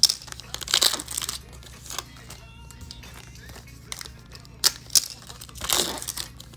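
Foil wrapper of a Donruss Elite football card pack crinkling and tearing as it is ripped open by hand, in a few sharp bursts: at the start, about a second in, and again around five to six seconds.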